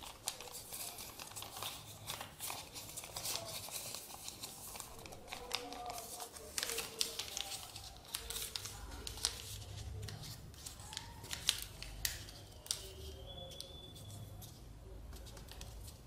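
A sheet of white paper being folded and creased by hand into an origami crane: irregular crackles, rustles and sharp creasing clicks as the layered folds are pressed flat.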